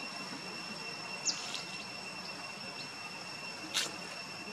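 Forest ambience dominated by a steady, high-pitched insect drone held on one pitch, with a brief falling chirp about a second in and a single short click near the end.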